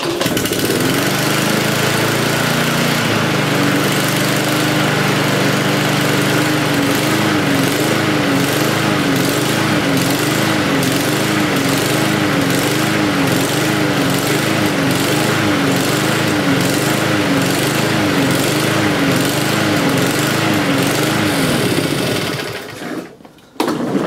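Champion petrol lawnmower engine catching on the first pull of the starter cord and running on choke, then hunting: its speed rises and falls about once a second. The engine stops near the end. The surging is a classic sign that the carburettor needs servicing.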